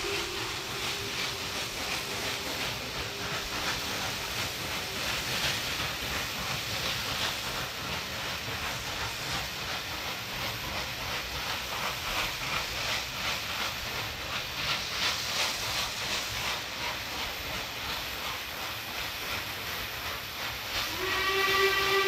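Double-headed steam locomotives working upgrade: steady rhythmic exhaust beats over a hiss of steam. A steam whistle dies away in the first couple of seconds, and a steam whistle sounds again about a second before the end.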